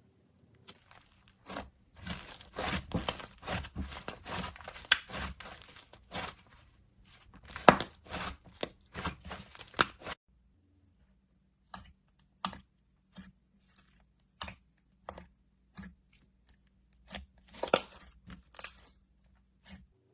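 Slime with clay mixed in being kneaded and stretched by hand. There are about nine seconds of dense sticky crackling and popping, which cut off suddenly, then after a pause a sparse run of single pops and clicks.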